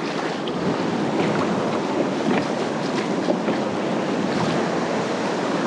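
Steady wash of ocean surf and waves, with wind buffeting the microphone.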